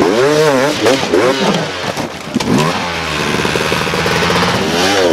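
Enduro dirt bike engines revving in quick bursts, the pitch swinging up and down, with a steadier held note for a second or two past the middle.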